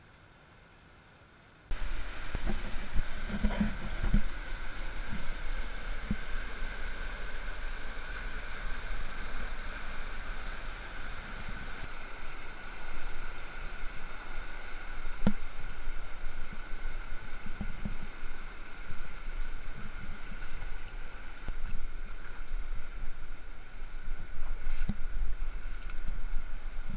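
Near silence for a moment, then a sudden cut to the steady rush of the South Fork Payette River's rapids, with low wind rumble and scattered knocks on the microphone.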